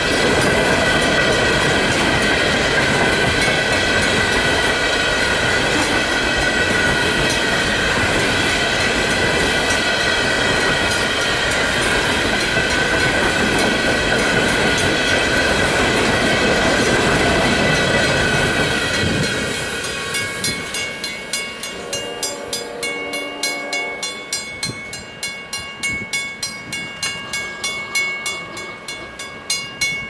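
Long train of empty coal cars rolling past at speed, wheels clattering over the rail joints, until the last car clears a little under two-thirds of the way through. Then a grade-crossing warning bell rings on by itself, about two strikes a second.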